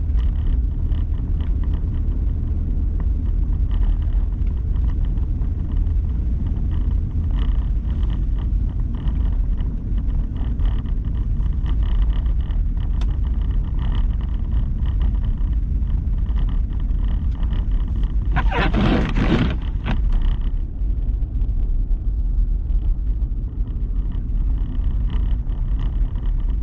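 Steady low rumble of road and engine noise heard inside a vehicle driving on snowy roads. About two-thirds of the way through, a loud rushing noise lasts a second or two.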